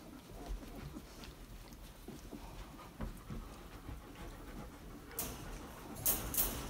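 Dog panting, the breaths louder in the last second and a half, over a few faint small knocks and scuffles.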